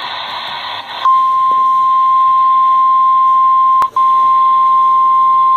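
Weather radio emergency alert: a hiss of static, then the single steady warning alarm tone, a high beep held continuously from about a second in. About four seconds in it is broken once by a click and a momentary dropout.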